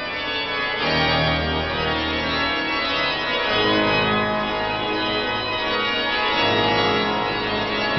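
Cathedral pipe organ playing creepy, sustained chords over deep bass notes, the chords changing every second or two.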